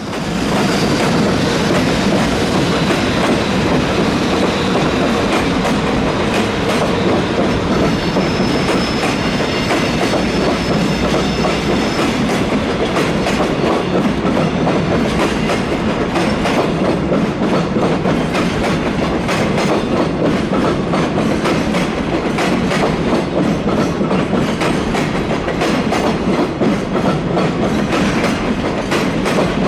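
A freight train passing at speed, its wagon wheels clattering steadily over the rail joints, with a faint high squeal for a few seconds about a third of the way in.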